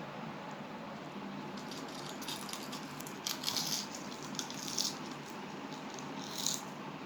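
Crisp snack chips crackling in short bursts, several clustered in the middle and one more near the end, over a steady background hiss.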